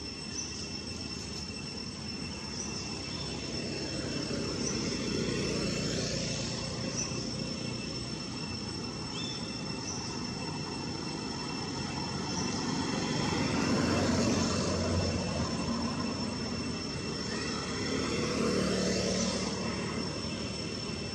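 Outdoor ambience: a steady high insect drone, a few short high chirps, and a low rumbling noise that swells and fades three times, like passing traffic.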